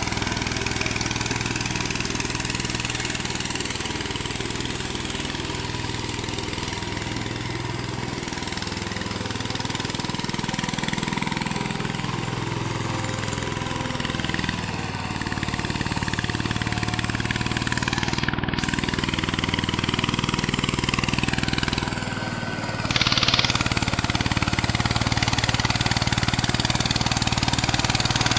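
VST power tiller engine running steadily while working a field. Its level dips briefly and comes back a little louder about three quarters of the way through.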